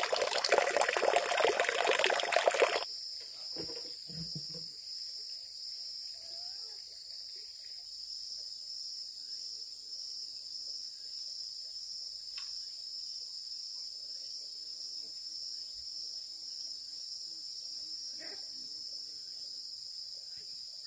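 Running water for about the first three seconds, cutting off abruptly. Then a steady, high-pitched insect chorus, several even tones held without a break.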